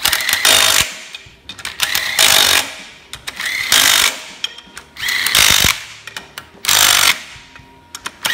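Snap-on compact cordless impact wrench hammering flywheel bolts in, in five short bursts of under a second each, with small clicks in the gaps between bursts.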